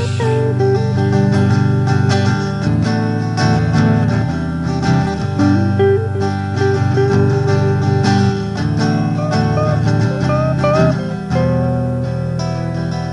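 Background music led by plucked acoustic guitar in a country style, with a melody moving over steady sustained chords.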